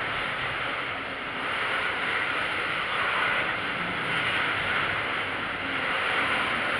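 Tank cars of a loaded oil train rolling past: a steady rumble and rush of steel wheels on the rails.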